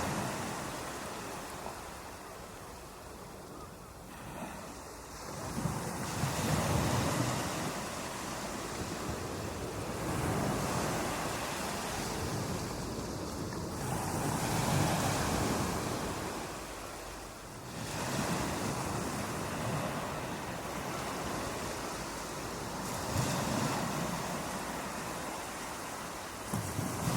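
Ocean waves breaking on a beach: a continuous surf wash that swells and ebbs, with a surge every five to eight seconds.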